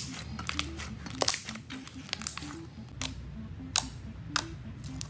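Thick, glossy slime squeezed and pressed by hand, giving several sharp wet pops and crackles as air bubbles burst in it. A simple background music melody plays underneath.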